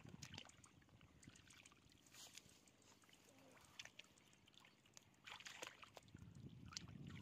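Faint sloshing and squelching of hands and rubber boots in a shallow muddy puddle, with scattered small splashes and a brief cluster of them about five seconds in.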